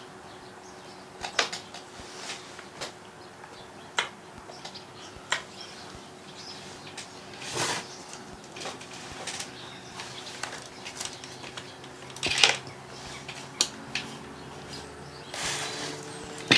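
Scattered clicks and light metallic clinks of chainsaw parts being handled and fitted by hand, with a few louder knocks, over a faint steady hum.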